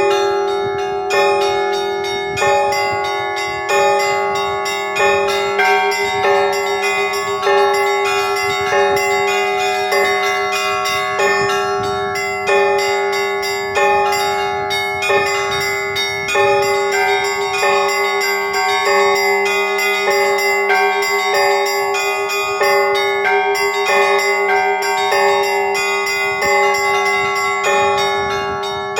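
Church bells ringing together in a continuous rhythmic peal: a main strike comes about every second and a quarter, with several higher bells ringing between the strikes over a deep bell's steady hum.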